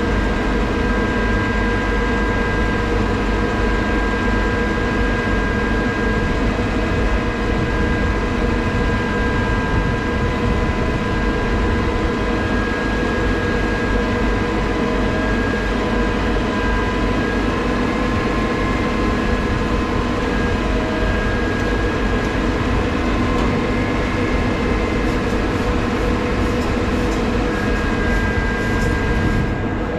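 Crane truck's diesel engine running steadily at a constant speed during a lift, with a steady high whine over the low rumble.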